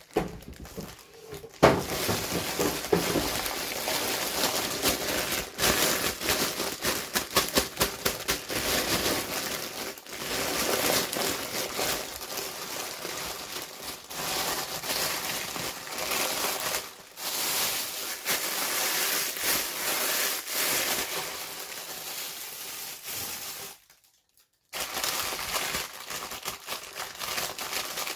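Plastic toy packaging crinkling and crackling as it is handled and opened, with many small clicks and taps. The sound drops out completely for about a second near the end.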